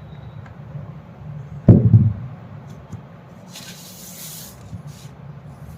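Handling noise while unboxing a portable speaker: a loud low thump a little under two seconds in, a brief rustle about four seconds in and a few faint clicks, over a steady low hum.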